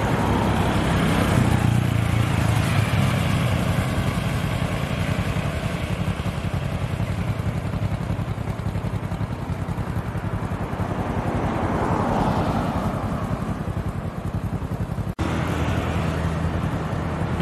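Road traffic: cars and motorcycles passing on an open street, with a steady engine hum and tyre noise. A car passes in the first seconds, and another vehicle swells and fades about twelve seconds in. The sound breaks off for an instant about fifteen seconds in.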